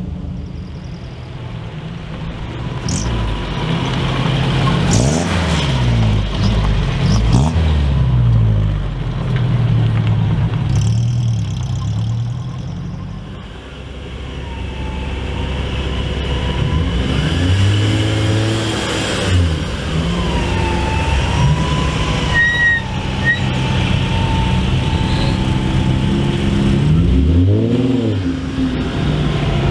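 Japanese performance car engines revving and accelerating hard, with pitch rising and falling over and over across several clips. There are quick rev blips near the middle and again near the end.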